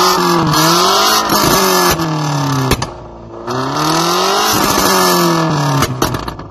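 Modified, excessively loud exhaust on a BMW sedan being free-revved while stationary. The engine pitch climbs and then falls back twice, with a short drop toward idle about three seconds in. Sharp cracks and pops come from the exhaust as the revs fall.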